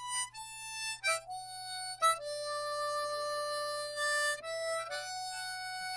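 Background music: a harmonica playing a slow melody of long held notes.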